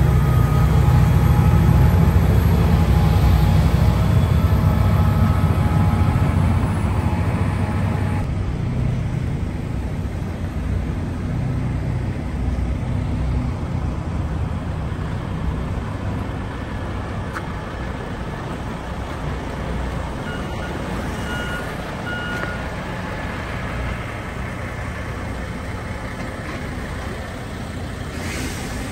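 Diesel engines of heavy snow-removal semi-trucks and a front loader running with a loud low rumble, which drops to a quieter steady idle after about eight seconds. A few short beeps come about two-thirds of the way through.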